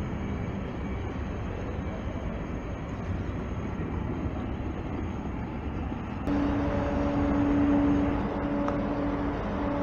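Road and rail ambience at a level crossing, with a steady rumble of traffic, then an abrupt change about six seconds in to a level-crossing warning sounding a loud, steady low tone with short breaks.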